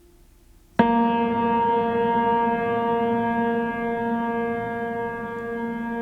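A loud, sustained musical tone, likely from the video's background music, starts suddenly about a second in and holds one pitch with many overtones while it slowly fades.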